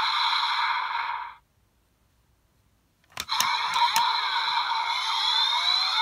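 Bandai DX Desire Driver toy belt playing its Boost Mark III electronic sound effects through its small speaker: synth tones and sweeps that cut off about a second in, a pause of near silence, then a few sharp plastic clicks as the buckle is worked, and the electronic sounds start again with rising sweeps.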